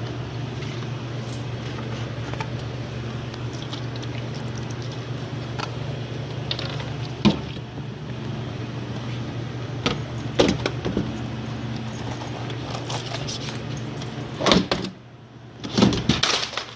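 A steady low mechanical hum with sharp knocks and clatter now and then. The hum cuts off about fifteen seconds in, and a couple of louder knocks follow.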